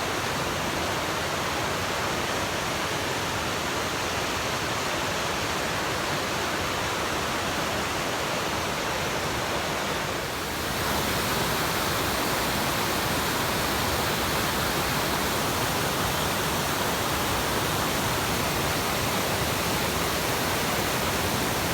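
Waterfall: the steady rush of falling water, dipping briefly about halfway through and then a little louder.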